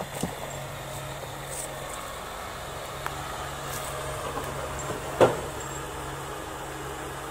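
Mini excavator's diesel engine running steadily, with one loud clank about five seconds in and a few lighter knocks.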